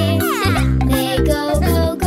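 Children's cartoon music with a steady beat and sustained notes, a few of them sliding down in pitch near the start.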